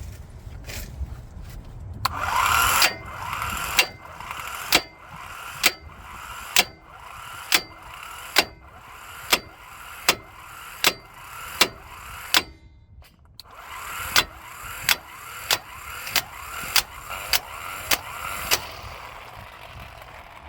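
E-Heelp cordless impact wrench on a 36 mm socket, hammering at a staked nut torqued to 180 ft-lb, with regular sharp cracks about once a second. It stops briefly about two-thirds of the way through, then hammers again with slightly quicker cracks, kind of struggling to break the staked nut loose.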